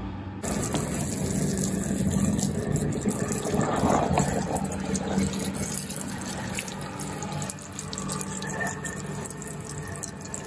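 Water running and splashing steadily as freshly repotted trees are watered. It starts about half a second in and eases off a little after about seven seconds.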